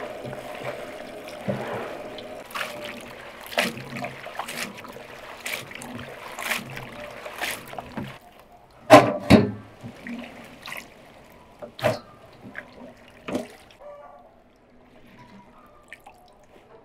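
Tap water running into a basin of chopped green beans while hands swish and rub the beans in it. About eight seconds in, the steady running water gives way to a quieter stretch with a few sharp splashes as handfuls of beans are lifted out of the water.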